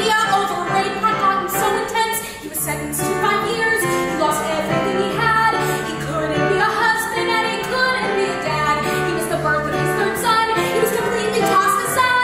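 Female vocals singing a musical-theatre song over keyboard accompaniment.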